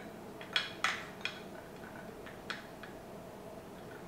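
About five light, sharp clicks and taps of kitchenware on a table as ingredients are being added to a guacamole bowl: a plastic measuring cup set down against a plate and bowls, then a small glass dish handled. The loudest knocks come in the first second and a half.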